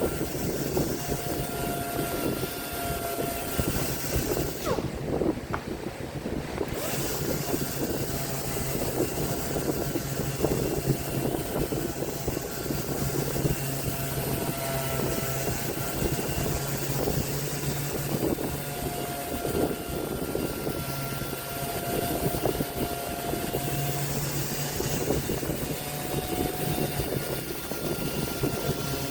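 Woodworking power tool motor running steadily while working wood, with a continuous hum and a rough grinding texture; its high hiss drops out briefly about five seconds in.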